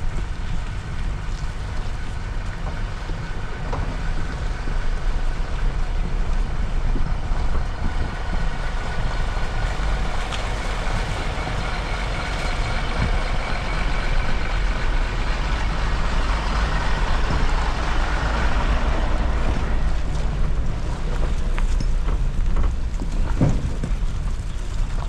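Suzuki Jimny driving off-road: a steady heavy low rumble of engine and drivetrain with a faint whine above it, and a single knock near the end.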